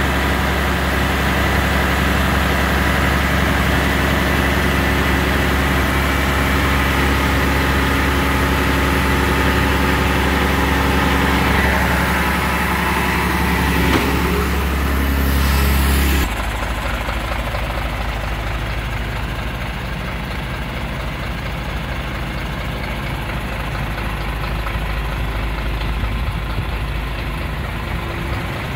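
Scania P92H truck's six-cylinder diesel engine idling steadily. About halfway through, the sound suddenly becomes quieter and loses much of its deep hum.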